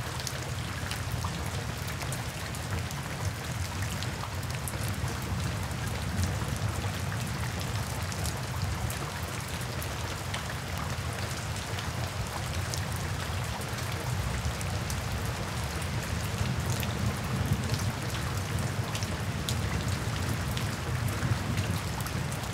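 Steady rain falling: an even hiss with a low rumble underneath and many small, sharp ticks of single drops striking.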